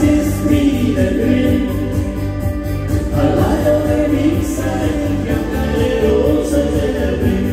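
German Schlager-style pop song played live on keyboard and electric guitar over a steady beat, with sustained choir-like vocals and no lyrics sung.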